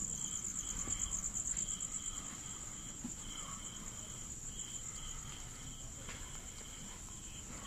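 Crickets trilling at night: a steady high-pitched trill, with a lower chirp repeating over and over.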